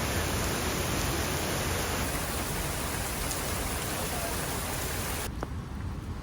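Steady rushing noise like heavy rain or falling water, which cuts off suddenly about five seconds in.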